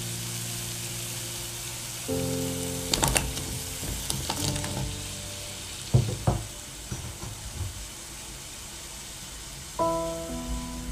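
Ginkgo nuts simmering in water in a yukihira pan, with a slotted ladle knocking against the metal pan several times as it works the nuts to loosen their thin skins. Soft background music with held notes plays over it.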